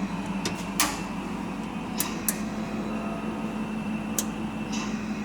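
A steady low hum, with several short sharp clicks scattered through it.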